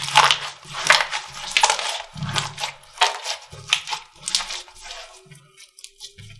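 Slime being pressed and squeezed by hand, giving a series of crackling squelches about one every two-thirds of a second that grow weaker near the end.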